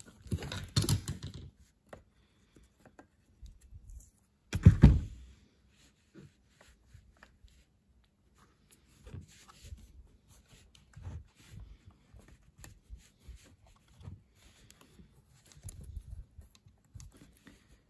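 Handling noise from refitting a chainsaw's oil pump and oil line: small clicks, taps and scrapes of plastic and metal parts being pushed into the crankcase, with one sharp knock just before five seconds in.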